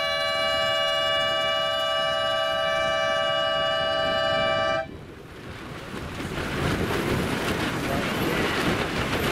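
One long, steady air-horn blast, the race committee's signal at the start of a sailing race, cutting off abruptly about five seconds in. After it, wind noise on the microphone and water build up.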